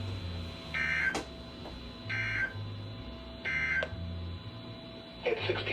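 Emergency Alert System end-of-message (EOM) code: three short bursts of digital data tones about a second and a half apart, which mark the close of the alert.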